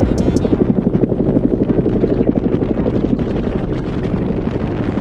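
Helicopter rotor chopping, a loud, rapid, even pulsing that eases slightly near the end.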